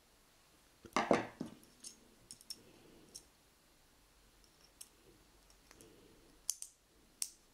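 Small metal toggle latch handled in the hands: sharp clicks and light metallic clinks as its parts are moved and fitted, with a louder clatter about a second in and two crisp clicks near the end.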